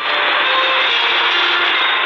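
Music from a shortwave pirate radio broadcast on 5800 kHz, heard through the small speaker of a C.Crane CC Skywave portable radio. It has the narrow, treble-less sound of AM shortwave, with static hiss under short held notes.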